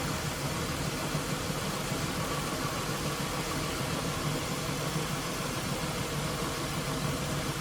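Dodge Intrepid's engine idling steadily. The engine has one misfiring cylinder, found while its cylinders are checked one by one.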